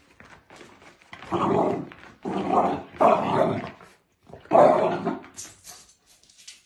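Puppy growling and barking, four short rough vocalisations over a few seconds.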